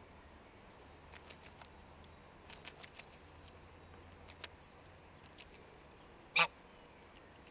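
Domestic goose nibbling at a hand-held lettuce leaf: a run of quick, crisp clicks of its bill on the leaf, then one short, loud honk about six seconds in.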